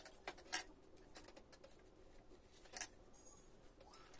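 A few short, light clicks and taps of a pen and a sheet of canvas interfacing being handled on a tabletop while lines are marked: the loudest tick about half a second in, another just before three seconds, with fainter ticks between.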